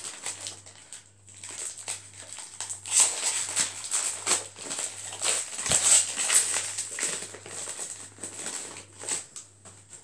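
Crinkling and rustling of trading-card booster packs being torn open and cards being handled, in irregular bursts that are busiest in the middle.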